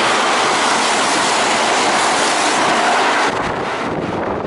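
Kintetsu "Kagirohi" train running through the station at speed without stopping: a loud rush of wheel and air noise that drops off suddenly about three seconds in as the last car clears the platform, leaving wind on the microphone.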